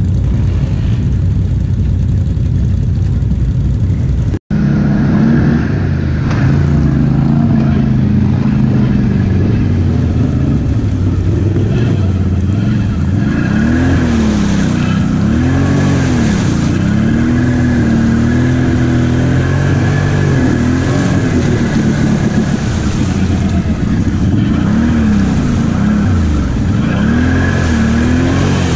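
Can-Am XMR ATV engine revving hard while ploughing through a deep mud hole. Its pitch swings up and down again and again as the throttle is worked. There is a brief break in the sound about four seconds in.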